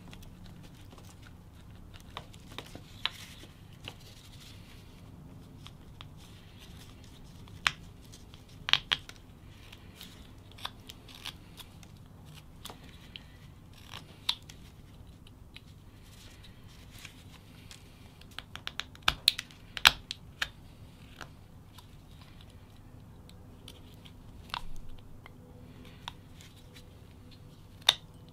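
Whittling knife paring chips off a small wooden block: short, sharp clicks and snaps of the blade cutting through the wood, coming at irregular intervals with a quick run of cuts about two-thirds of the way in, over a faint steady low hum.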